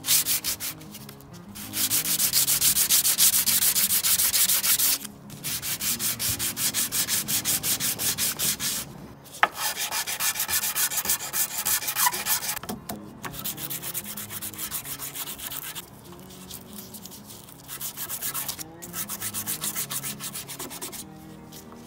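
Parts of an old wooden bench plane rubbed fast back and forth on sandpaper over a flat tile, a rasping scrape as the rust is sanded off. It comes in several runs of quick strokes with short pauses between.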